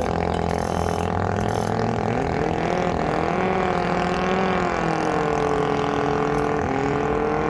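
Modified Honda engine on a Thai long-tail racing boat running hard. Its note climbs about two seconds in, then wavers up and down.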